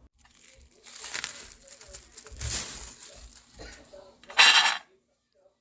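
Rustling and clattering as a bowl of marinated pork is covered with plastic and handled: three noisy bursts, the last and loudest about four and a half seconds in.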